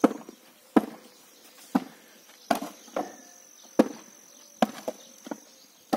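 Hammer blows on a stone-block wall being knocked down: about ten sharp knocks at an uneven pace, roughly one every half second to a second. A steady high insect whine runs underneath.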